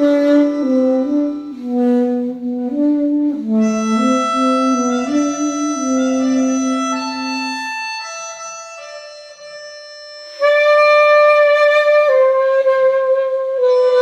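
Alto saxophone played live over a recorded pianica (keyboard melodica) piece: two slow melody lines moving in steps, thinning out after about eight seconds, then loud long-held notes from about ten seconds in.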